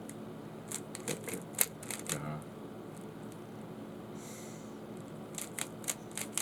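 Rubik's Cube being turned by hand: quick runs of plastic clicks as the layers are twisted, one cluster in the first couple of seconds and another near the end, with a brief scraping rub in between.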